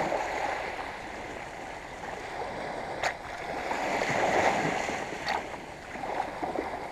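Small waves washing up the beach through the shallows, the wash swelling about four seconds in. Two brief clicks, one about three seconds in and one near five.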